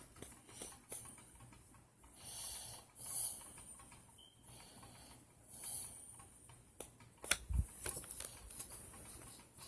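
Quiet handling noise: soft rustling puffs, then a few sharp clicks and a low thump about seven and a half seconds in.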